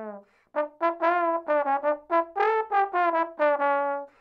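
Slide trombone playing a quick melodic phrase of about a dozen short tongued notes, some sliding in pitch, starting about half a second in and ending just before the end.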